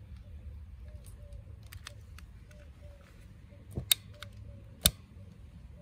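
Sharp clicks from a long-nosed gas barbecue lighter being worked while lighting a firelighter cube: a few light clicks, then two loud ones about a second apart in the second half. Low wind rumble on the microphone underneath.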